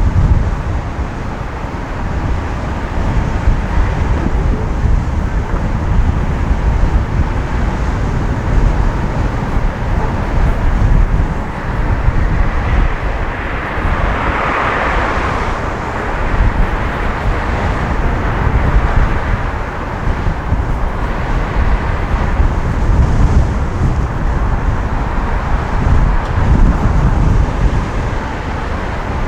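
Road and traffic noise with wind rumble, picked up by a microphone on the roof of a moving van. About halfway through, a louder rushing noise swells and fades.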